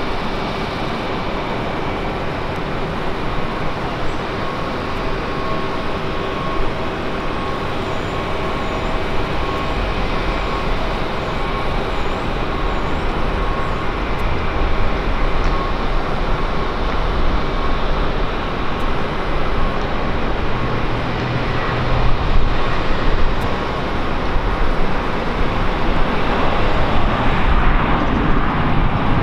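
Jet airliner engines running with a steady rush of noise and a faint high whine, growing slowly louder, with a low rumble coming in strongly over the last several seconds.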